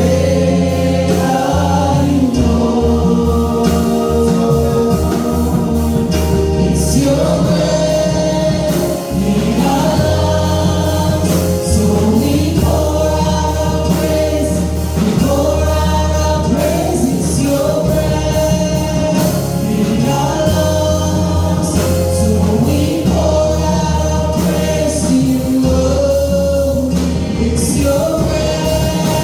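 A choir singing a gospel song over instrumental backing with a steady bass line and a beat.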